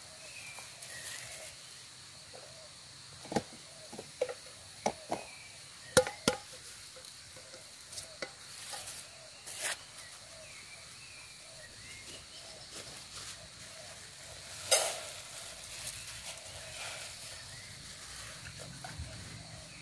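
Small plastic food packets being handled and opened, rustling and crinkling, with scattered sharp clicks and knocks, the loudest about six seconds in and again near fifteen seconds.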